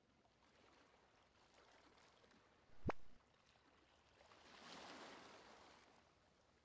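Near silence with faint hiss, broken by one short sharp click about three seconds in and a soft whoosh that swells and fades around five seconds. These are slide-transition sound effects.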